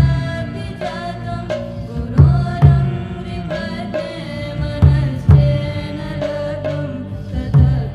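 Devotional song: a chanted vocal melody over a steady drone, with deep drum strikes falling in pairs, about half a second apart, roughly every two and a half seconds.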